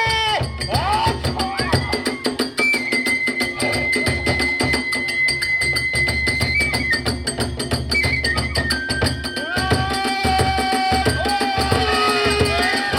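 Kagura ensemble music: fast, steady drumming and clashing hand cymbals, with a flute holding a long high note for several seconds, then stepping down to lower held notes.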